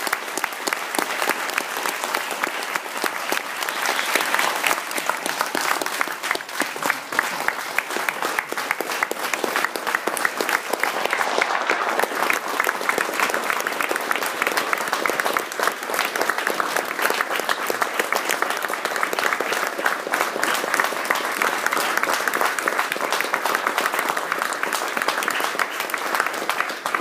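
A seated audience applauding in a lecture room: long, sustained, dense clapping from many people that dies away at the very end.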